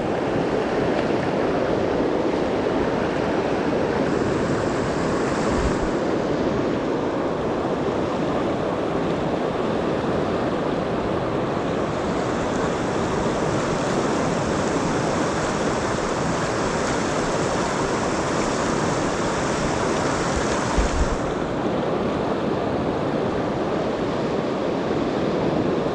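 Steady rushing of a shallow river riffle. A brighter hiss joins it twice, the longer stretch stopping suddenly about twenty-one seconds in.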